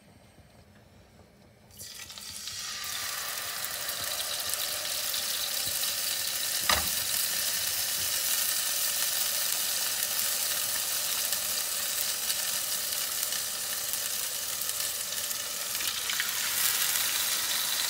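Blackened-spice-coated salmon fillets sizzling in hot oil in a frying pan: the sizzle starts suddenly about two seconds in as the first fillet goes into the pan and runs on steadily, growing louder near the end as a second fillet is laid in. One sharp click about seven seconds in.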